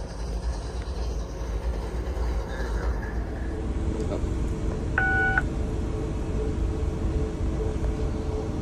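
Idling CSX diesel freight locomotive, a steady low rumble. About five seconds in, a short single-pitched electronic beep sounds for under half a second.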